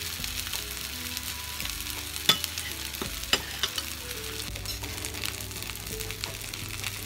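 Two salmon fillets sizzling flesh-side down on a preheated ridged grill pan. There are two sharp clicks about a second apart, a little over two seconds in.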